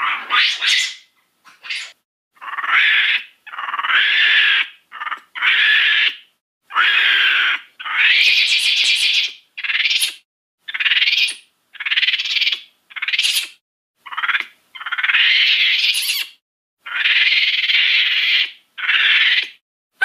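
A string of about twenty short dinosaur calls from a Mattel Jurassic World toy's sound effects, each under a second or so with short silent gaps between, some ending in sharp upward shrieks. The sound is thin, with no low end.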